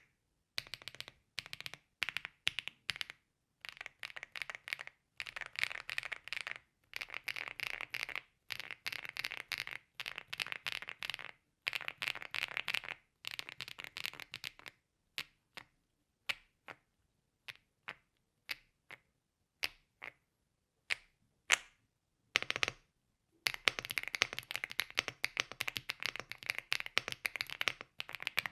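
Typing on a Rainy75 Standard mechanical keyboard with stock WOB Crape Myrtle (HMX Violet) switches. Runs of quick keystrokes slow to scattered single key presses about halfway through, then turn to fast typing again about five sixths of the way in.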